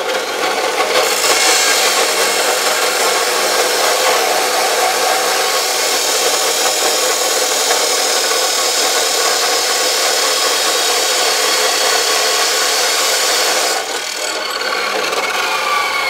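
Ridgid 14-inch abrasive cut-off saw grinding through quarter-inch steel angle iron: a loud, steady, harsh grinding of the abrasive wheel against the steel, as the saw struggles through the thick stock. About fourteen seconds in the grinding stops, and the motor winds down with a falling whine.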